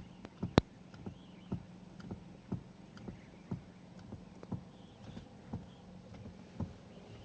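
Knocking from a Volkswagen Polo's steering: short dull knocks repeating evenly about twice a second, the loudest one near the start, over a steady low hum. The knock is the steering fault being demonstrated.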